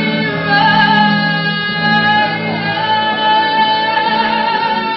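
A woman singing one long, high held note with vibrato over a steady instrumental backing track; the note and the backing cut off together at the end.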